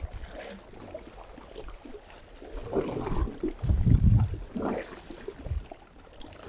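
Seawater washing and sloshing against shoreline rocks, swelling louder about three to four seconds in.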